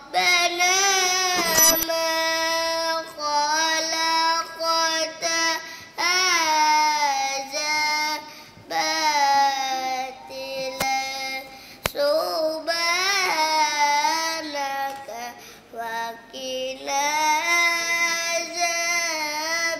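A young boy reciting the Quran in a melodic chant (tilawah). He draws out long held notes that rise and fall in several phrases, with short pauses for breath.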